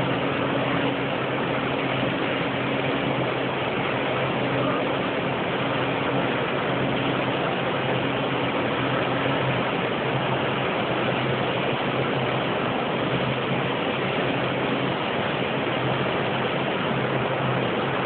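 Steady mechanical whir and buzz of several electric sheep-shearing machines running at once, their overhead drive gear and handpieces clipping fleece, with a low steady hum underneath.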